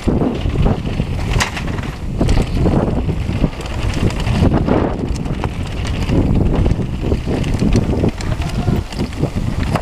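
Wind rushing over the microphone of a camera carried by a mountain biker descending a dirt downhill trail, with the tyres running on dirt and many irregular knocks and rattles as the bike hits bumps.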